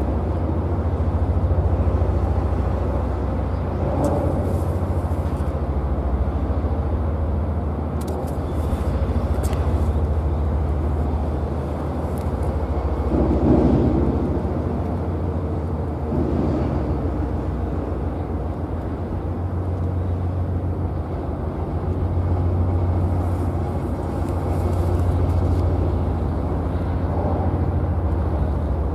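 Steady low drone of a Japan Coast Guard patrol vessel's engines as it passes across the water, with a few brief swells of louder noise.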